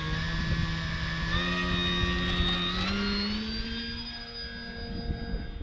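Motor and propeller of a radio-control Super Decathlon model plane, whining as the throttle is opened for takeoff. The pitch steps up twice, then fades as the plane climbs away. Gusty wind rumbles on the microphone.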